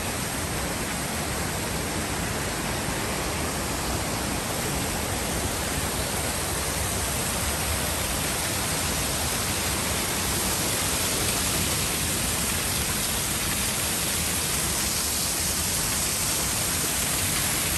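Steady rush of falling water from a waterfall pouring down a stone wall onto rocks, a little louder from about halfway through.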